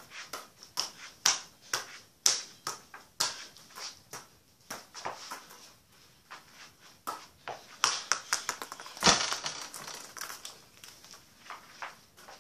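A football being juggled and dribbled with bare feet: an irregular run of soft taps and thuds from the ball on the feet and the floor, with the heaviest thump about nine seconds in.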